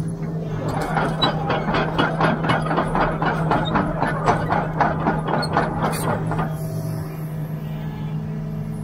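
Doosan tracked excavator's diesel engine running steadily, with a rapid, even clatter of its steel tracks, about four or five clicks a second, as the machine travels. The clatter starts about a second in and stops about six and a half seconds in, leaving the engine alone.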